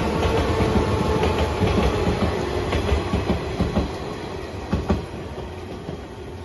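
Train running past over jointed track, its wheels clicking over the rail joints with a heavy rumble that starts to die away about four seconds in as the train moves off.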